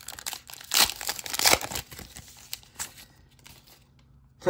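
Foil trading-card pack wrapper crinkling in the hands as it is opened, fading out after about two to three seconds.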